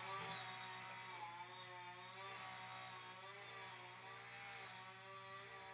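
Chainsaw running faintly, its engine holding a high whining note near G that wavers up and down.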